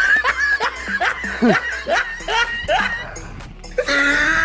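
A person snickering and laughing in short repeated bursts over background music.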